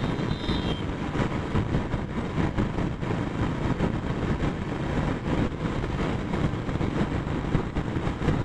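Royal Enfield Classic single-cylinder motorcycle cruising at steady speed, its engine running under a constant rush of wind on the microphone.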